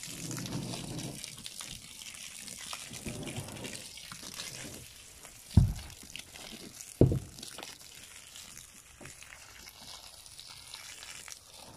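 Water running from a garden hose into a tub, a steady splashing hiss. Two loud thumps sound near the middle, about a second and a half apart.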